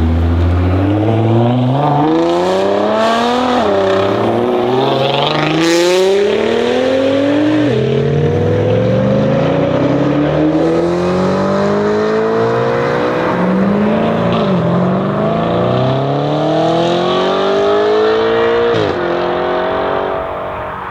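Tuned Nissan GT-R R35's twin-turbo V6 accelerating hard through the gears: the engine note climbs, drops sharply at each upshift, about four times, then climbs again.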